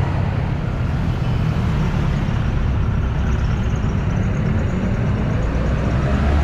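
Road traffic passing close by: motorcycles, cars and a jeepney's engine, a steady low rumble.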